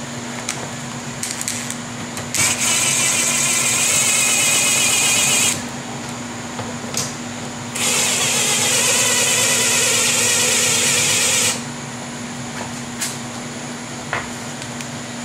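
Power drill/driver running in two steady runs of about three and four seconds, the first starting about two and a half seconds in and the second about eight seconds in, tightening the hold-down bolts of a rooftop air conditioner's ceiling assembly so they compress the unit's roof gasket.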